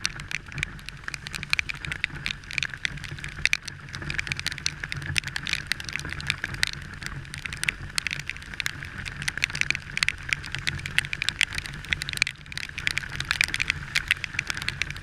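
Rain striking the camera as dense, irregular ticks over the steady hum of a Yamaha scooter's engine and the hiss of its tyres on the wet road.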